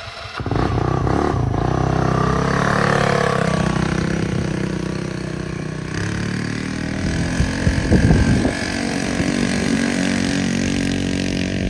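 The rebuilt single-cylinder four-stroke engine of a Polaris RZR 170 mini side-by-side picks up just after the start and runs under throttle as the machine pulls away across grass and climbs a slope. Its pitch rises and falls with the throttle, and it gets louder for a moment around two-thirds of the way through.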